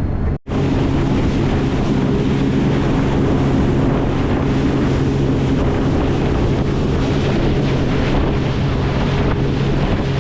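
A boat's engine running steadily while the boat is under way, with wind buffeting the microphone and water rushing along the hull. The sound drops out briefly about half a second in.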